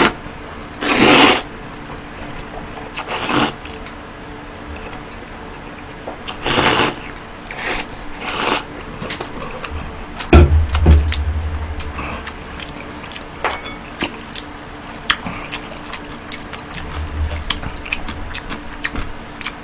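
Slurping cold noodles and broth of mul-naengmyeon from a steel bowl, in several short, loud bursts. About halfway through there is a low thump as the bowl is set down on the table, followed by chewing and small clicks.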